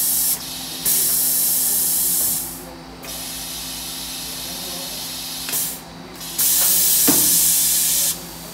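Compressed air on a CNC lathe and its SMW Space Saver 2000 bar feeder hissing in long bursts, each a second or more, three times, over the machine's steady electrical hum.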